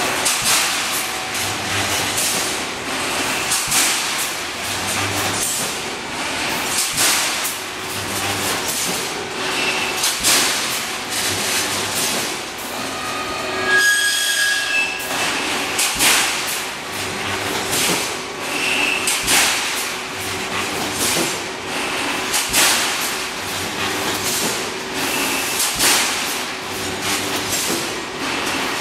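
Automatic rebar mesh welding machine running: steel bars and machine parts clanking and rattling over and over, with a low hum that comes and goes. A short high squeal about halfway through.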